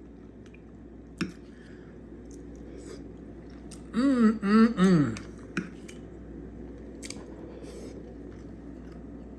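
A man chewing a mouthful of chicken curry and rice, with a few short sharp clicks. About four seconds in he hums a wavering 'mmm' of enjoyment for about a second, falling in pitch at the end.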